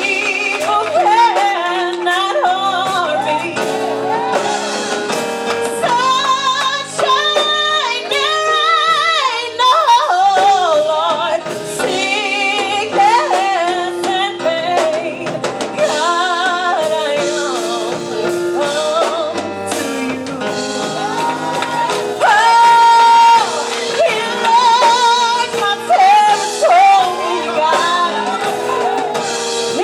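Gospel vocal group singing to instrumental accompaniment, a woman's voice leading with wavering, ornamented notes.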